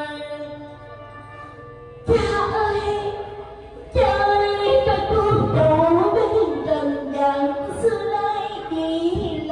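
A woman sings a funeral lament into a microphone over instrumental accompaniment. It starts softly, a loud sung phrase comes in about two seconds in, and from about four seconds the singing carries long, wavering held notes.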